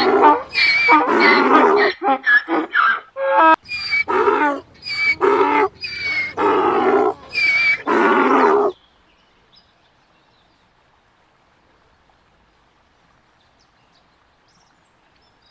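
Donkey braying: a long run of hee-haws, higher notes alternating with lower ones, that stops abruptly about nine seconds in, leaving near silence.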